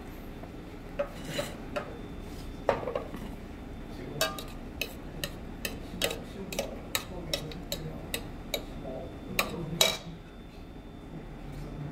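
White ceramic plates and bowls clinking and knocking against each other and the stainless steel counter as they are moved. A string of irregular sharp clinks, the loudest near the end.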